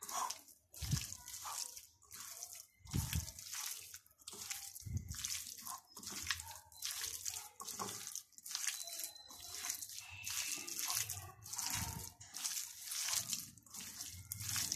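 Raw chicken pieces being mixed by hand with spices in a glass bowl: a steady run of wet squelches, about two a second, with now and then a dull knock.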